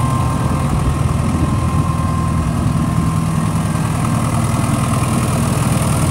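Diesel engine of a New Holland TS6030 tractor idling steadily.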